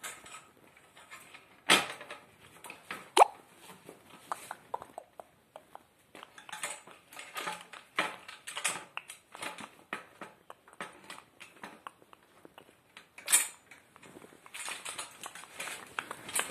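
Hard metal objects clinking and knocking at irregular intervals. There is a sharp knock just under two seconds in, a ringing metallic clang just after three seconds, and another sharp knock about thirteen seconds in.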